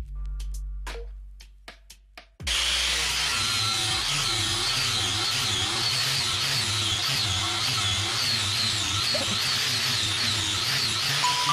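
Background music with a drum beat for about the first two seconds. Then an electric angle grinder with a sanding disc cuts in abruptly, sanding down a wooden cricket bat blank, its whine wavering up and down as it works against the wood.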